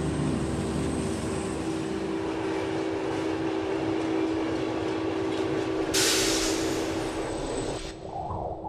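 Subway train running with a steady rumble and hum. About six seconds in, a loud hiss lasts about two seconds, then the train noise cuts off and drops away near the end.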